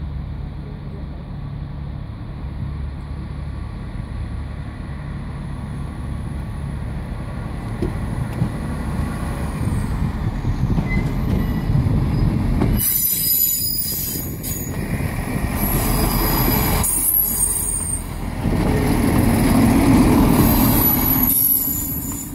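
Class 158 diesel multiple unit approaching and passing close by: the rumble of its engines and wheels on the rails builds from about ten seconds in and stays loud. High thin squealing from the wheels comes and goes in the second half.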